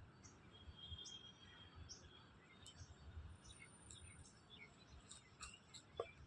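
Faint chirps and thin whistles of small birds: many short high notes scattered through, over a low rumble. Near the end comes one short, louder sound.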